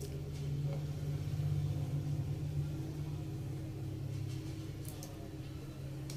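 Steady low mechanical hum, swelling a little about a second in and easing off, with a few faint ticks near the end as bare copper wire strands are twisted together by hand.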